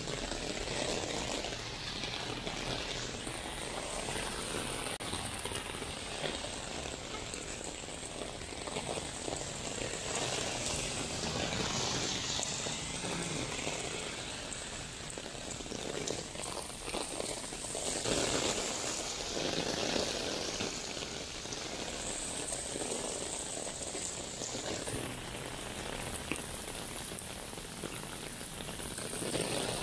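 Rain coming down steadily, an even hiss of falling drops.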